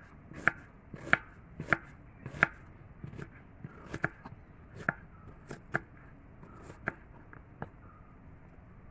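Knife chopping an onion on a metal plate: sharp, uneven knocks of the blade striking the plate, about one to two a second, louder in the first few seconds and growing sparse near the end.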